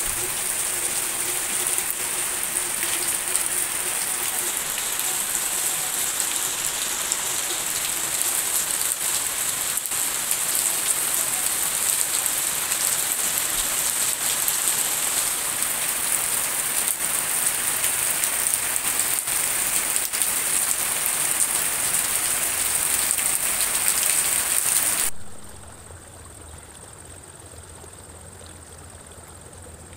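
Heavy rain pouring steadily. Near the end it cuts off suddenly and gives way to a much quieter low, steady hum.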